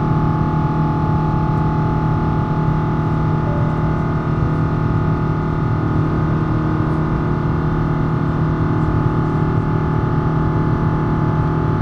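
Rolls-Royce Trent XWB-97 turbofan of an Airbus A350-1000 heard inside the cabin while climbing after takeoff: a steady drone with a low hum and a few held higher tones.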